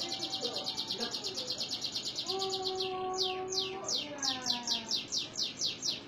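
Domestic canary singing: a fast rolled trill of short, high, downward-sweeping notes, about ten a second, then about three seconds in a slower run of longer sweeping notes, about five a second.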